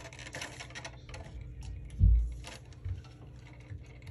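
Stiff plastic packaging being worked open by hand: scattered small clicks and crinkles, with a dull thump against the table about two seconds in and a smaller knock about a second later.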